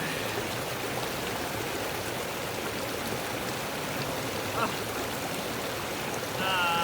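Small snowmelt creek flowing steadily over its bed, an even rushing of water. A brief voice sound comes near the end.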